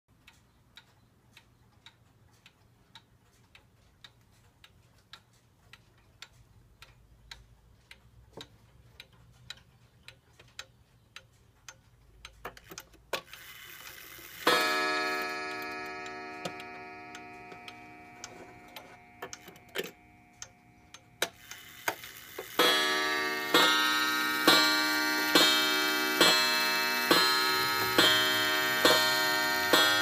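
Korean-made Unique 31-day pendulum wall clock ticking softly, then its hammer strikes the coiled gong rod once, left ringing and fading over several seconds. About two-thirds of the way through, a run of evenly spaced gong strikes begins, about one a second, as the clock strikes the hour.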